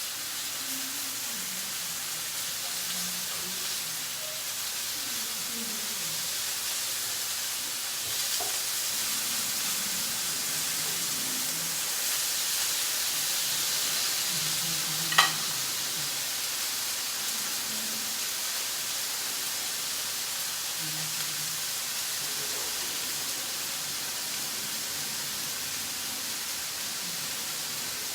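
Spiced chicken breast fillets sizzling as they fry in a pan, a steady hiss throughout. A single sharp knock comes about halfway through.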